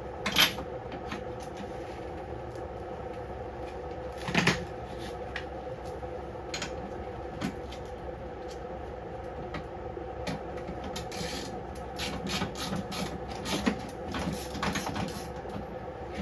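Metal tool clicks and knocks as a spark plug is taken out of a small snowblower engine with a socket wrench, over a steady background hum. There is a sharp knock about half a second in and another about four seconds in, then an irregular run of clicks near the end.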